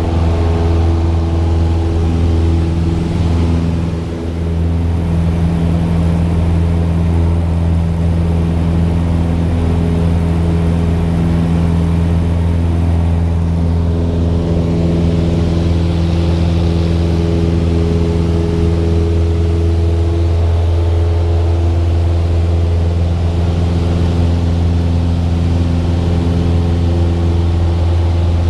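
Aircraft engine drone, a loud, steady low hum with a slight dip in loudness about four seconds in.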